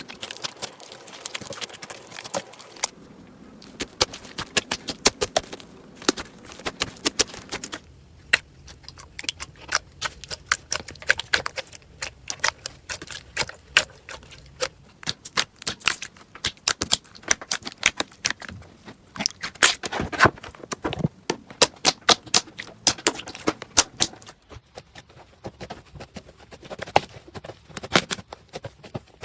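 Slime being squeezed and poked by hand, giving a fast, irregular run of sticky clicks and pops.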